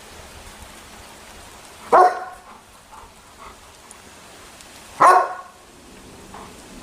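A dog barking twice: two single, loud barks about three seconds apart.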